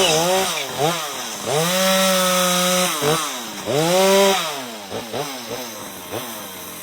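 Two-stroke carving chainsaw revving up and down in repeated bursts as it cuts into wood, with two held runs of about a second each, then a few quick blips before it drops back to idle near the end.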